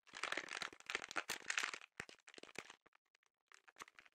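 Thin plastic foot-mask bootie crinkling as hands handle it around a foot: a dense run of crinkling for about two seconds, then a few scattered crackles, picking up again near the end.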